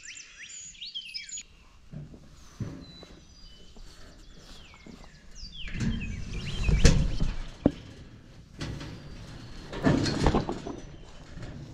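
A person climbing over a woven-wire fence: clothing and gear rustle, and the wire creaks and knocks, with two louder bouts of scraping and thumps about six and ten seconds in and a sharp click between them. Songbirds give short, downward-sliding chirps.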